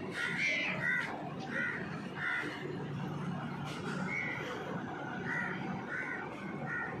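A bird calling over and over, about eight short calls with gaps between them, over a low steady hum.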